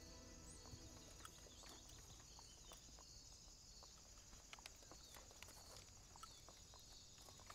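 Near silence: faint outdoor ambience with a steady high-pitched chirring and a few soft scattered clicks.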